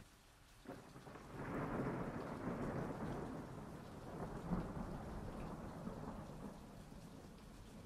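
A long roll of thunder that swells up about a second and a half in and slowly dies away over several seconds, over a faint steady hiss of rain.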